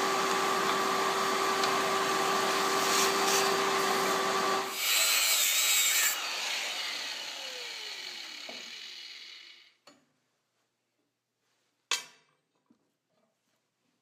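A hand-held power tool motor runs steadily for about five seconds. Its sound then changes briefly, and it winds down and fades out over the next few seconds. A single sharp click comes near the end.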